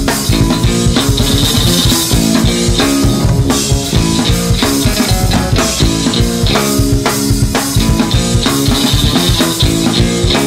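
Instrumental rock played by a guitar, bass guitar and drum kit trio: a busy drum beat with cymbals under sustained guitar and bass notes.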